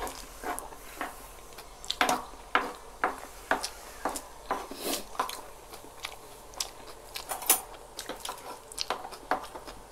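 Close-up eating sounds: chewing and mouth smacks in irregular short clicks, a few a second, with a metal spoon scraping and tapping as shawarma rice is scooped up off a wooden board.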